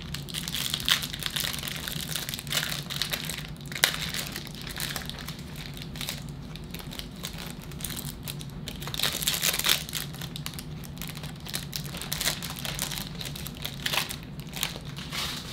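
Baseball card pack wrappers crinkling and rustling as the packs are opened and the cards handled, with scattered sharp crackles.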